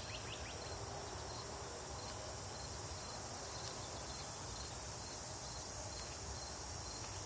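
Steady, high-pitched chorus of insects outdoors, running evenly without a break.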